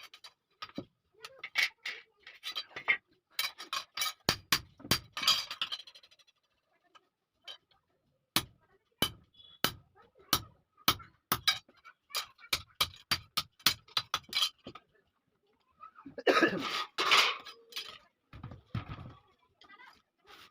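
Hammer blows on iron at the anvil: sharp separate strikes, scattered at first, then an even run of about three a second. Near the end a louder, longer sound of about a second breaks in.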